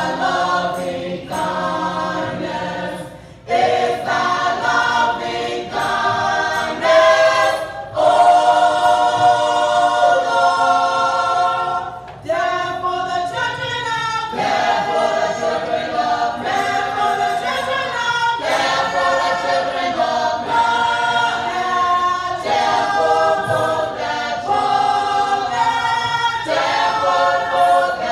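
Gospel choir singing together in long phrases, with brief breaths between them.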